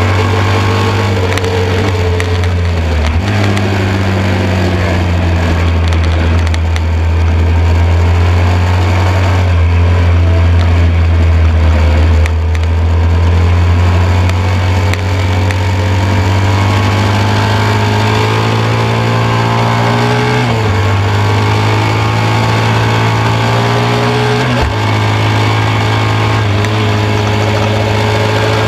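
1972 BMW R75/5 750 cc air-cooled boxer twin engine running hard under race load, heard from on board the bike over steady wind rush. Its note jumps abruptly several times, with slower rises and falls between.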